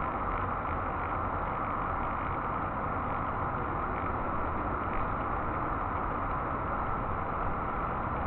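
Steady droning hum of a crowd of honeybees at a hive entrance, with a low rumble underneath.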